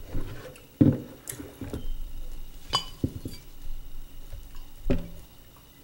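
A series of sharp knocks and clicks, about half a dozen, the loudest about a second in and another near the end.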